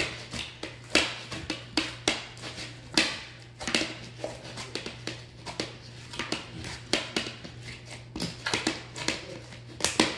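Butter slime, made of glue and air-dry clay, kneaded and squeezed by hand in a bowl: irregular sticky squishing with many quick sharp clicks and pops.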